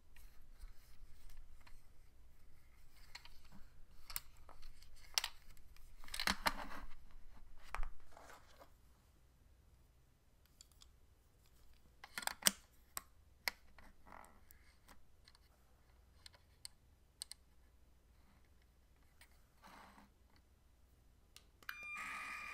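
Lego Technic plastic parts clicking and rattling as the model is handled and a brick-built record is set on its turntable, in scattered sharp clicks. Near the end a steady high electronic tone starts.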